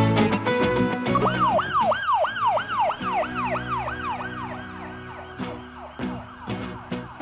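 Background music with a siren-like yelp starting about a second in. It rises and falls about three times a second and fades away slowly.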